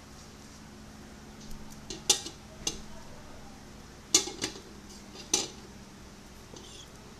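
Glass jars clinking and knocking against one another and the aluminium pressure cooker as they are set inside it, about six sharp clinks in all, the loudest about two and four seconds in.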